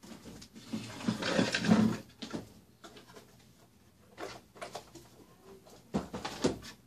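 Close rustling and handling noises with scattered knocks and clicks, loudest about a second in and again near the end.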